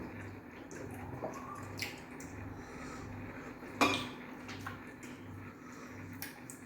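Bowls and plates clinking and knocking on a table at a meal, with light scattered clicks and one sharper knock about four seconds in, over a steady low hum.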